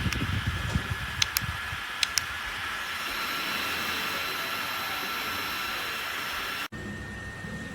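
Small battery-powered neck fan running: a steady airy hiss with a thin, high motor whine. A few light clicks come in the first couple of seconds.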